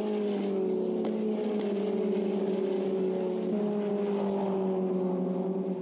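Formula Regional single-seater race car engine running at fairly steady revs, its note shifting slightly in pitch about three and a half seconds in.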